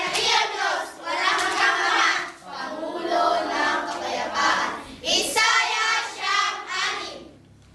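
A group of young children singing together, trailing off near the end.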